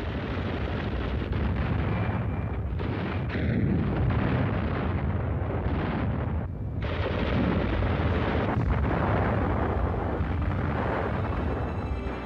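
Battle sound effects: a continuous din of explosions and gunfire over a heavy low rumble, dipping briefly about halfway through.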